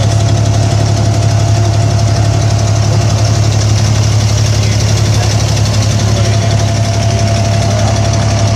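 Diesel engine of an abra water taxi running steadily under way, a loud, even low drone with a faint steady whine above it.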